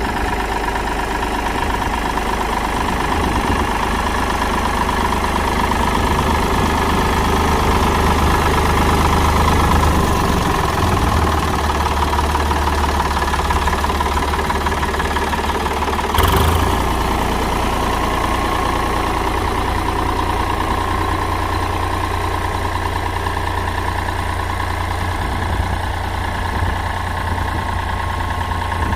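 Ford tractor engine running steadily, with a single brief knock about halfway through.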